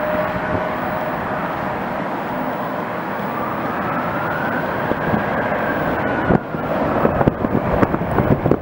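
Jet airliner engines running, a steady roar with a faint whine that slowly rises and then falls in pitch, as of a passing aircraft. Short crackles come in over the last couple of seconds.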